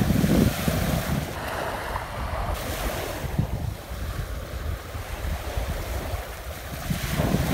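Small waves lapping and breaking on a sandy shore, with wind buffeting the microphone, heaviest at the start and again near the end.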